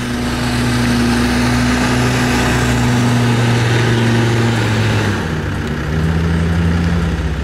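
Land Rover Discovery's engine running steadily as it drives off-road, its note shifting to a different pitch about five seconds in.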